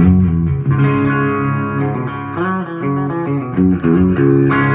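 Electric guitar played through the amplifier alone, with the fuzz pedal bypassed: a run of notes and chords, with a last chord struck near the end and left ringing.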